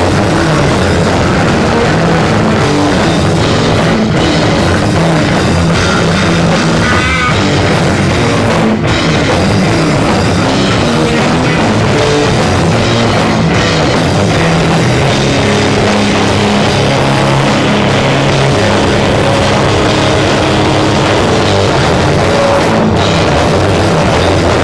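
Live rock band playing loud and fast, drums and guitars, recorded through badly overdriven microphones so the whole sound is distorted and crushed flat. It plays on without a break.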